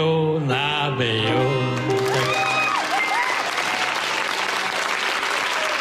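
A man sings the last line of a comic song with instrumental accompaniment, ending about two seconds in. A studio audience then applauds, with a few voices calling out over the clapping.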